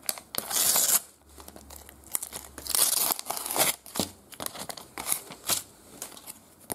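Thin paper Panini sticker pack being torn open, its wrapper crinkling and tearing in two loud spells, about half a second in and again near three seconds. Lighter crackles and taps follow as the stickers and card are handled.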